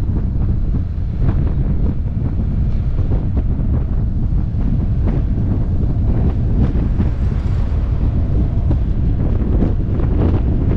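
Wind buffeting the microphone of a camera on a moving motorcycle: a loud, steady low rumble with short knocks now and then.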